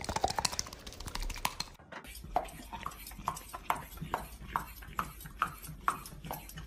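A quick flurry of clicks and knocks for about two seconds, then a steady clip-clop percussion beat, evenly spaced at about two strokes a second.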